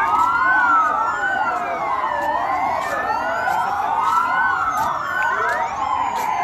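Several sirens wailing at once, their rising and falling tones crossing and overlapping.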